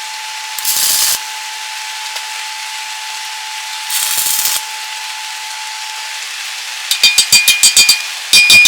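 Tools on steel in a welding shop: two short hissing scrapes, then near the end two quick runs of sharp metal-on-metal knocks, several a second, each ringing briefly. A steady faint hum runs underneath.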